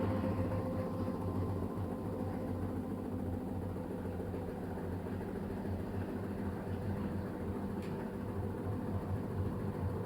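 LG washing machine running: a steady motor hum, with a single faint click near the end.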